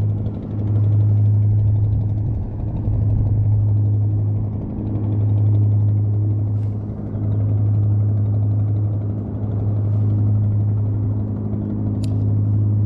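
A motor's steady low hum with a few overtones, swelling and easing every couple of seconds. There is a single sharp click about twelve seconds in.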